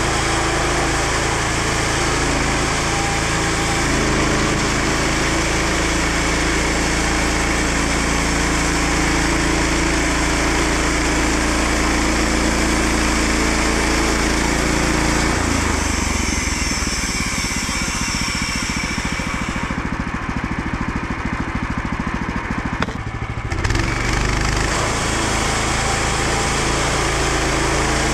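An engine running steadily. Its sound changes about halfway through, then returns to the first pattern at about 24 s.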